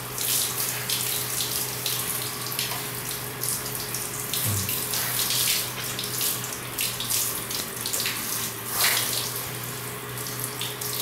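Handheld shower head spraying water at low pressure, held close against a Siberian Husky's wet coat, with a continuous flickering hiss of water running through the fur and splashing onto a tiled floor. A faint steady low hum runs underneath.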